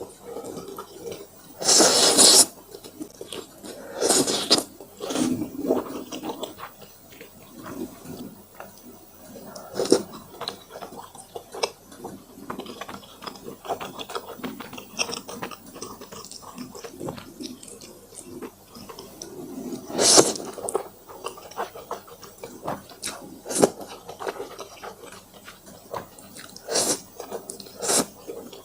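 Close-miked mouth sounds of someone eating spicy fire noodles: steady wet chewing and smacking, broken by several louder slurps of noodles.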